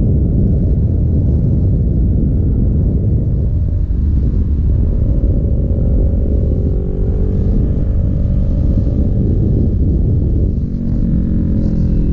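Sport motorcycle engine running at cruising speed in sixth gear, under heavy wind rush on the microphone. The engine note falls near the end as the bike slows.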